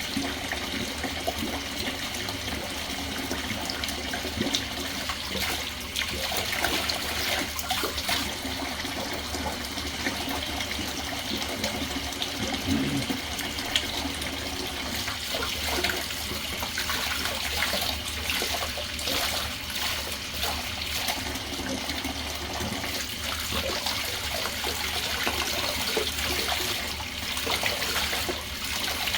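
Bathtub faucet running steadily, with water splashing as vacuum parts are rinsed under it.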